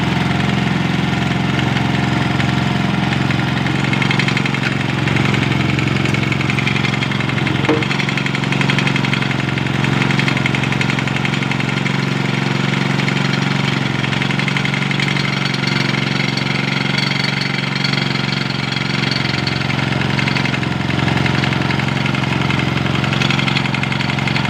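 Old Tossa motorcycle's small engine idling steadily at a constant pitch.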